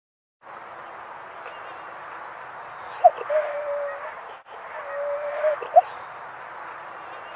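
Siberian husky giving a short whining call, about three seconds in and again about two seconds later, over a steady background hiss.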